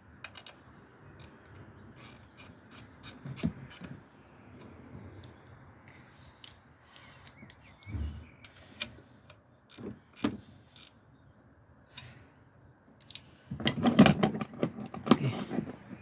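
Hand tools and metal parts clicking and knocking during hands-on work on the car's fuel system, with scattered single clicks and a dense, louder run of rattling clicks about three-quarters of the way through.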